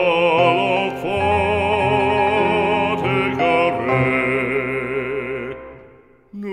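Background music: a solo voice singing a French hymn with wide vibrato over steady held accompaniment. The phrase fades away about five seconds in, and the next phrase starts right at the end.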